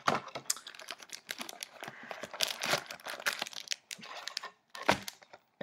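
Wrapped hockey card packs crinkling and rustling as they are handled and pulled out of the cardboard box, with a sharp tap near the end.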